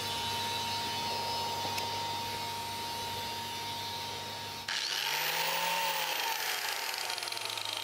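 Hand-held angle grinder with a carving disc running freely, not yet cutting into the wood: a steady motor whine. About two thirds of the way in, its pitch swells up and falls away again.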